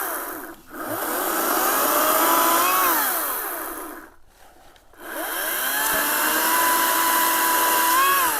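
Echo ECCS-58V battery chainsaw's electric motor whining in three bursts: it spins up, holds a steady pitch, then winds down, with short stops about half a second in and around four seconds in. It is cutting up small limbs of dry hickory.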